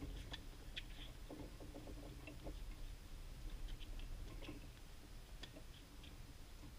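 Faint tennis rally on a hard court: scattered sharp ticks of racket strikes and ball bounces, a second or so apart, over a low steady rumble.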